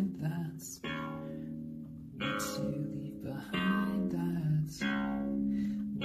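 A keyboard played in chords, a new chord struck about every second and a half and left to ring on.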